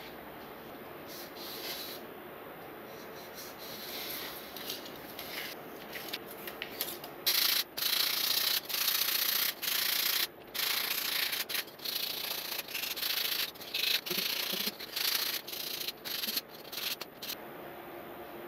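A white foam block being sanded with a flat sanding stick: repeated hissy back-and-forth rubbing strokes, faint at first and much louder from about seven seconds in, stopping shortly before the end.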